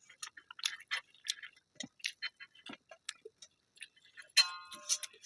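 Close-miked eating sounds: irregular small clicks and smacks of chewing and handling food, with a louder sharp clink that rings briefly about four seconds in.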